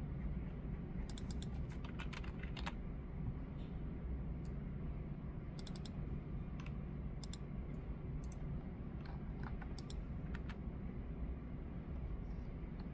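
Computer keyboard being typed on in short runs of keystrokes and single taps with pauses between, over a steady low room hum.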